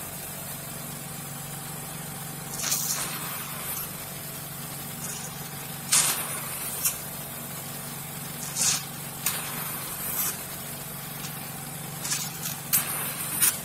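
Small-bubble hydrodermabrasion machine's suction pump running with a steady hum. Several short sucking hisses come through as the vacuum tip draws air and water while it is worked over the nose to extract blackheads.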